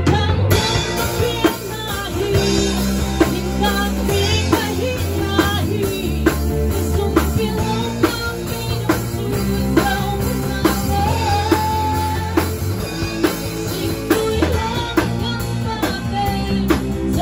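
Live rock band playing: a woman sings into a microphone over an electric bass holding low notes and a Ludwig drum kit keeping a steady beat.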